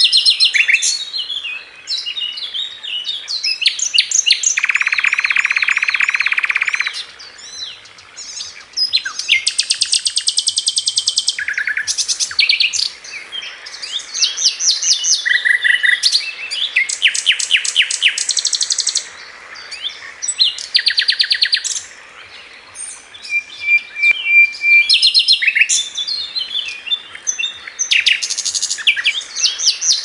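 A pastol songbird singing a fast, varied song of sharp chirps and rapid trills, with a long, even buzzy note a few seconds in and a short steady whistle about three-quarters of the way through.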